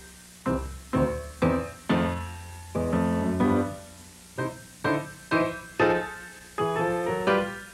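Piano music: notes and chords struck one after another, several a second, each starting sharply and fading away.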